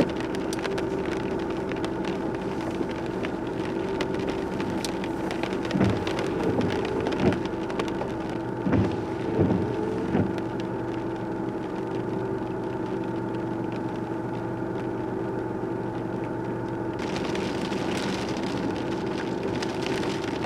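Steady hum heard from inside a car during a thunderstorm, with a few brief louder swishes a third of the way in. About three-quarters through, rain suddenly starts hissing and pattering on the car.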